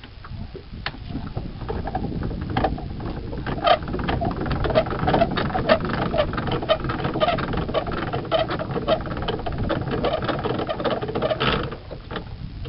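Small hand-cranked ratchet winch being wound, its pawl and gear teeth clicking rapidly and evenly as the crank turns, working the boat's centreboard. The clicking starts about two seconds in and stops sharply near the end.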